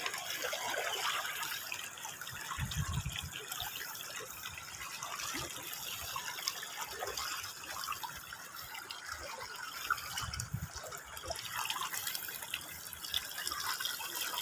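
Shallow stream trickling steadily over a pebble bed, with the splashing of feet wading through it in sandals, a little louder about three seconds in and again about ten seconds in.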